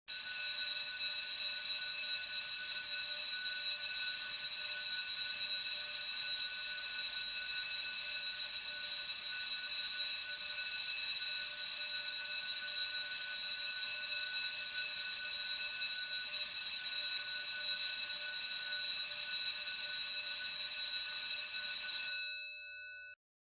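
School bell ringing continuously and loudly for about 22 seconds, a steady metallic ring full of high overtones. When it stops, a few of its tones keep sounding for about a second as the gong dies away.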